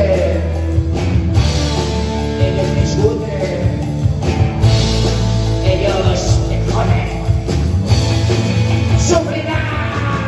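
Rock band playing live: a singer over electric guitars, bass guitar and a drum kit.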